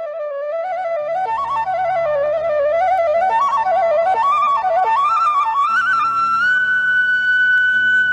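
Background music: a solo flute plays an ornamented melody that climbs and settles on a long held high note from about six seconds in, over a low drone.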